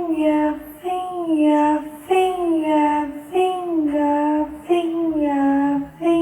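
A high, child-like voice saying "finger" again and again in a sing-song tone, about five times, each one sliding down in pitch.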